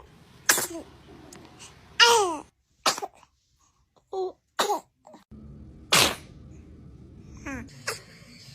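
Babies sneezing: a run of short, sudden sneezes a second or two apart, with brief baby vocal sounds between some of them.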